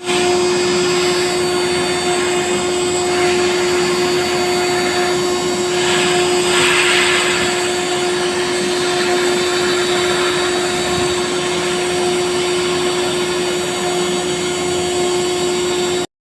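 CNC router spindle running at a steady high speed while cutting lettering: a constant high whine over a loud hiss of cutting noise. It cuts off suddenly near the end.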